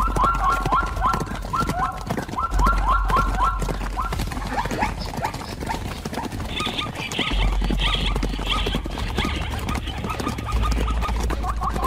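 Rapid runs of short, high yelping animal calls, several a second, in the first few seconds and again near the end. Fainter, higher calls come in between.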